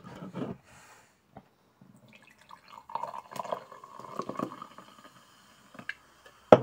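Carbonated energy drink being poured from a can into a glass, the liquid splashing and filling for about two seconds in the middle. A single sharp knock comes near the end.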